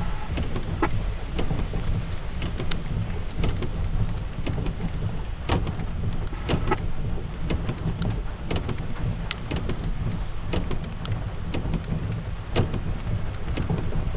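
Rain falling during a thunderstorm, with many irregular sharp drop clicks over a steady low rumble.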